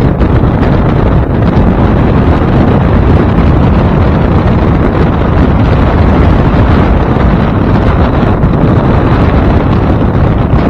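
Loud, steady wind buffeting the microphone as a small aluminium fishing boat runs under outboard power, its motor and the water beneath the hull underneath the wind.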